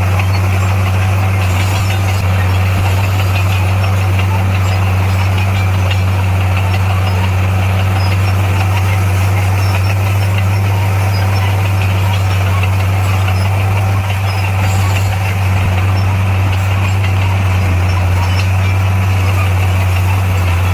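Heavy earthmoving machine's diesel engine running at a steady speed, a constant low drone that barely changes in pitch.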